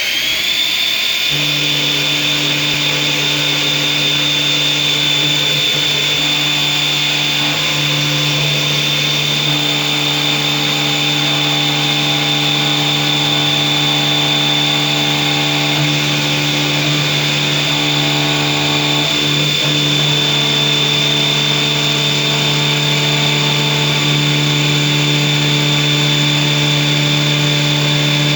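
CNC machine spindle running at speed with a steady high whine, having just spun up. A lower steady hum joins it about a second in and shifts slightly in strength every few seconds as the machine works.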